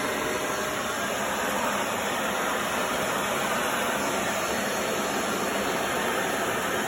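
Vacuum cleaner running steadily, an even rushing hiss of motor and suction.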